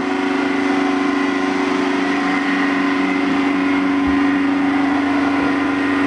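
AMR500 car supercharger repurposed as a fish-pond aeration blower, spun by an electric motor on an inverter set near 24 Hz. It runs with a steady, quite loud whine, louder because it is spinning faster.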